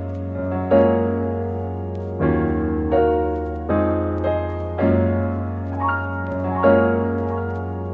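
Background music: mellow electric piano chords changing every second or so over a steady bass.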